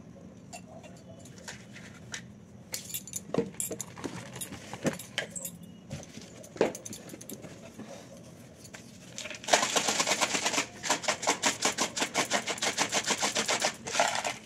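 Light clicks and clinks of small objects being handled, then from about two thirds of the way in a loud, rapid metallic jingling that is shaken for about four seconds, with a brief break near its start.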